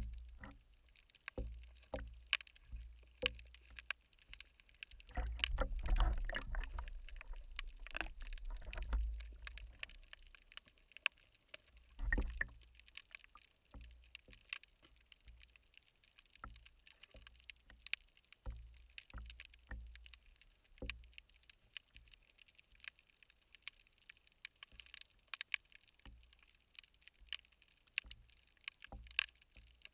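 Underwater sound picked up by a camera below the surface: a steady scatter of small clicks and crackles, with low thumps and water rumble from handling and movement, densest a few seconds in, and one heavier knock about twelve seconds in.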